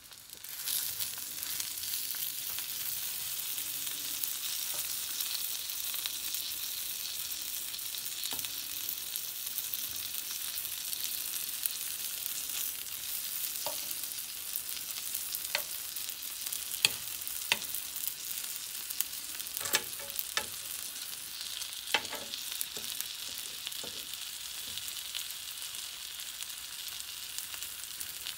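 Breakfast sausage links sizzling in a nonstick frying pan, a steady hiss. Now and then in the second half a fork clicks and scrapes against the pan as the links are turned.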